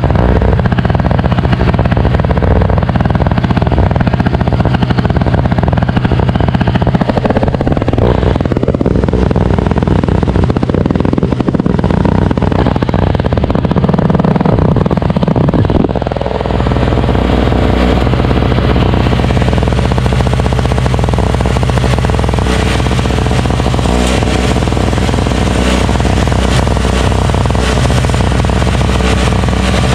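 Craftsman single-stage snowblower's 5 HP Tecumseh engine running steadily, driving the auger through its freshly reseated belt, which no longer binds on the pulley. The running sound dips briefly and changes tone about sixteen seconds in, with more rattle afterwards.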